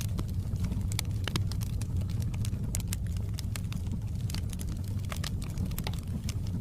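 Wood fire crackling in a fireplace: frequent irregular sharp snaps and pops over a steady low rumble of the flames.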